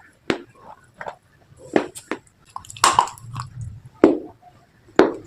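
Close-miked crunching of brittle slate pieces being bitten and chewed: a string of separate sharp crunches, the loudest about three seconds in.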